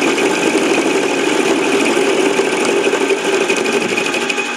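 A 7x10 mini lathe set up for milling, running steadily with a fast, even rattle from the cutter working the metal block.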